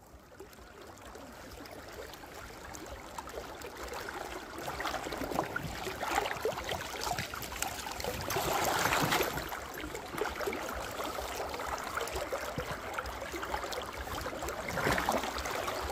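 River water rushing, with scattered small clicks and knocks over it. The sound builds over the first few seconds and is loudest around the middle.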